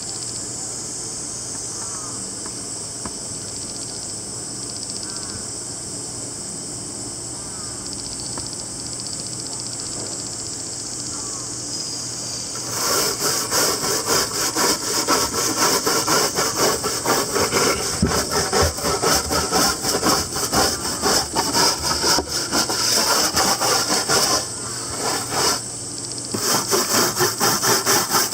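A stiff brush scrubbed hard back and forth over charred cedar (yakisugi) boards in fast, even strokes, testing how firmly the char layer holds. For roughly the first half only a steady high insect buzz is heard. The scrubbing then starts, breaks off briefly near the end, and picks up again.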